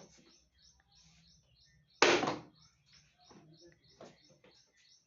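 A Samsung phone wrapped in bubble wrap dropped and hitting the ground with one loud thud about two seconds in. Birds chirp quickly and steadily in the background.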